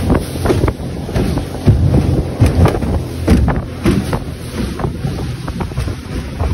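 Open aluminium boat under way through rough river rapids: heavy wind buffeting on the microphone over the rush of water, with irregular thumps as the hull hits the waves.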